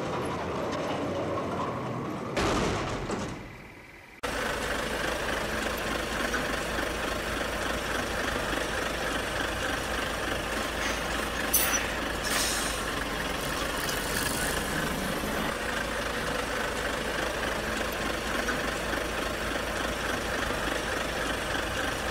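A brief rushing noise a couple of seconds in that fades out, then, from about four seconds in, a large truck engine idling steadily, with two short hisses around the middle.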